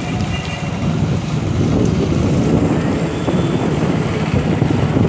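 Wind buffeting the microphone steadily, over the low rumble of street traffic.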